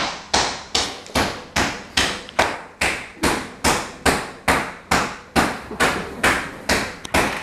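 Repeated hard blows on a kitchen work surface at a steady pace, about two and a half a second, each one sharp with a short ringing decay.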